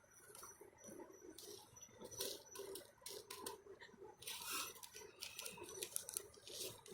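Faint, scattered small scrapes, ticks and rustles of fingers working seeds out of a bell pepper by hand.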